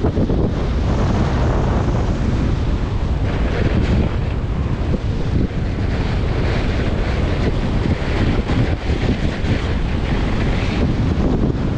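Heavy wind buffeting on the microphone of a camera moving fast downhill, with the hiss and scrape of edges carving over packed snow swelling with each turn, every few seconds.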